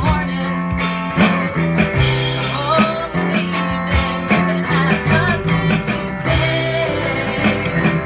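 Rock band playing an instrumental passage: a guitar lead with bending, wavering notes over bass and drums.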